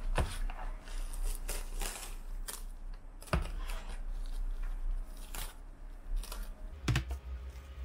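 Cling film crinkling and tearing as it is peeled off a plastic takeout food container, with a few sharp clicks and knocks from the container being handled.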